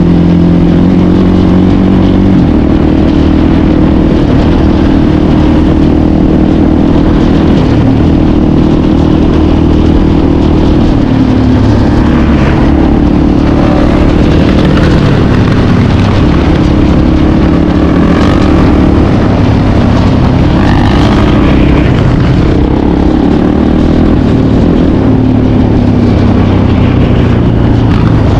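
Suzuki LTZ 400 quad's single-cylinder four-stroke engine running under way, close up, its note stepping up and down several times as the throttle and gears change.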